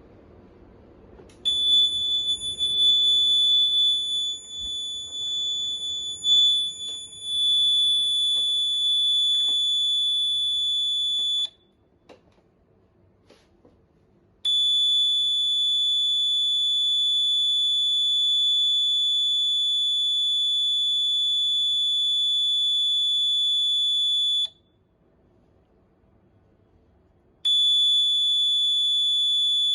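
Water level sensor alarm sounding a continuous high-pitched buzzer tone. The tone wavers and breaks at first, then holds steady for stretches of about ten seconds, with two pauses of about three seconds.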